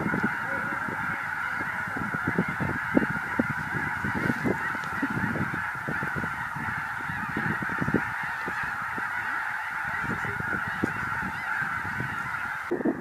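A huge flock of snow geese calling, thousands of honking calls merged into one continuous din, with many short low thumps underneath.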